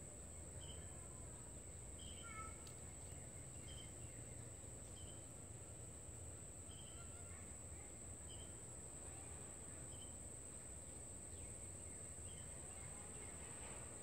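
Faint outdoor background: a steady high-pitched drone, with a short high chirp repeating about once a second over a low rumble.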